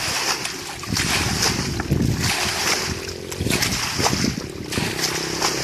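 Repeated splashing and sloshing of muddy water as it is scooped out with metal pots, bailing a shallow pond dry to catch fish.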